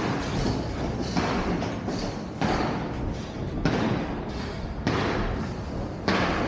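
Footsteps on a dusty concrete floor, a scuffing step about every 1.2 seconds, over a steady low rumble.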